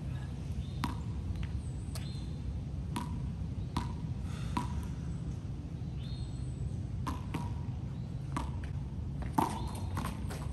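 A small rubber handball bouncing on the concrete court, sharp slaps with a short ring, about one a second and coming faster in the last few seconds, over a steady low background rumble.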